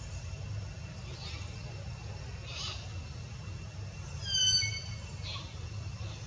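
One short, high animal call about four seconds in, gliding down in pitch, over a steady low rumble.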